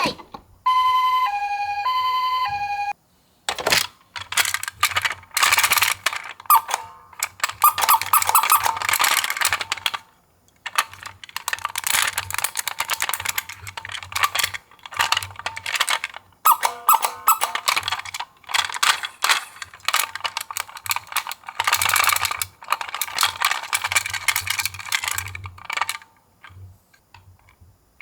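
A two-tone hi-lo ambulance siren alternates twice over the first few seconds and then cuts off. After that, die-cast miniature toy cars rattle and clatter in rapid runs of clicks as they roll down a slope and knock together, with short pauses between runs.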